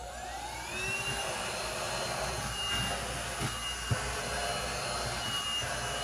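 Holife handheld cordless vacuum switched on, its motor whine rising as it spins up over the first second, then running steadily while it sucks dry oatmeal off a carpet. A single sharp tick comes about four seconds in.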